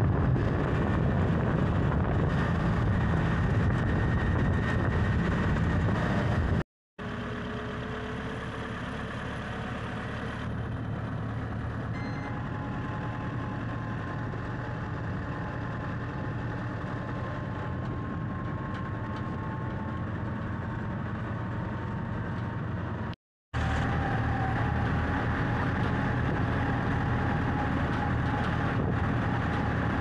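A motor vehicle's engine running steadily, broken into three stretches by two abrupt cuts; the middle stretch is quieter.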